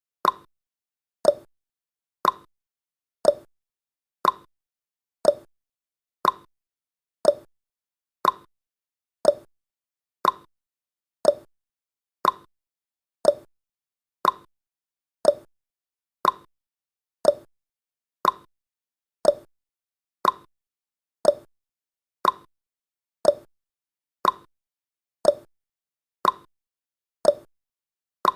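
Countdown timer's clock-tick sound effect: one sharp tick each second, alternating higher and lower like a clock's tick-tock.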